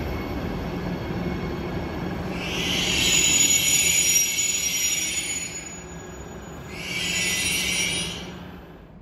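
SBB double-deck passenger train moving slowly along the platform, rumbling low, with two high-pitched squeals from its wheels: a longer one from about two seconds in and a shorter one near the end, after which the sound fades.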